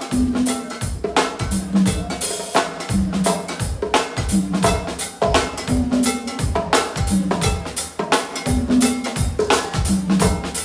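Live go-go band playing an instrumental groove: the drum kit keeps a steady pocket of bass drum, snare and rimshots over a repeating low bass figure.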